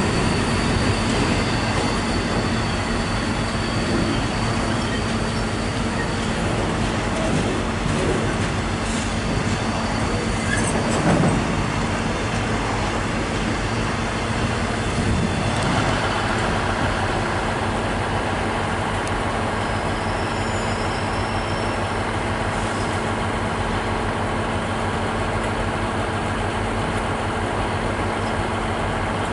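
Freight train of covered steel-coil wagons rolling past: a steady rumble and clatter of wheels on rail. A thin high whine runs through about the first eleven seconds, and there is a single louder clunk about eleven seconds in.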